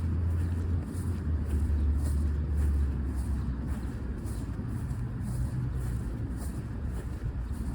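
Steady low rumble of road traffic, with the strongest rumble in the first three seconds.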